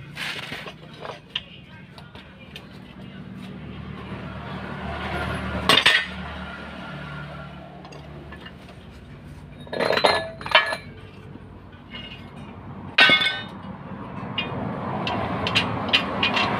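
Steel leaf-spring leaves and hand tools clinking and clanking as a truck's front leaf spring pack is taken apart. Sharp metal knocks come at irregular intervals, several in quick succession near the end, over a low steady hum.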